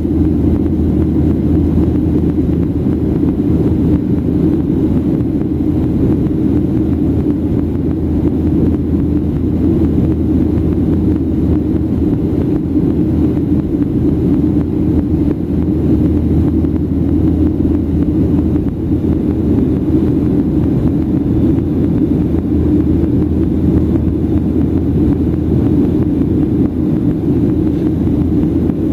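Steady cabin noise of a Boeing 737-800 in the climb, heard from inside the cabin: a low, unchanging drone from its CFM56-7B turbofan engines and the rush of air past the fuselage.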